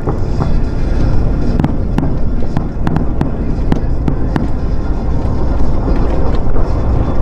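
Fireworks bursting in an irregular run of sharp bangs and crackles, thickest through the first half, over a steady low rumble.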